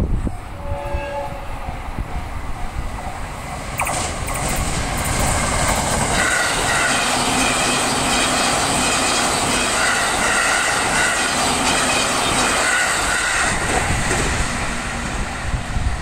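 JR East E657 series limited express electric train passing a level crossing at about 120 km/h: a sudden loud rush of wheel and air noise about four seconds in that lasts about ten seconds, with clattering over the rail joints. The train sounds its horn, and the crossing's warning bells ring.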